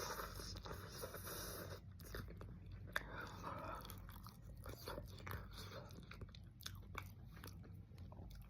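Someone chewing and biting food, with irregular wet mouth clicks and smacks, one sharper click about three seconds in.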